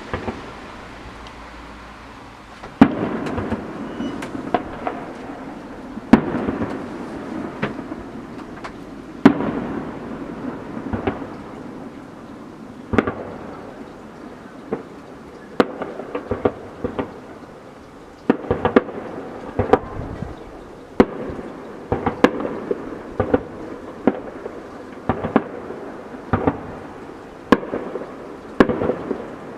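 Aerial fireworks display: firework shells bursting with loud sharp bangs every few seconds, each followed by smaller crackling pops. The bangs come closer together in the second half.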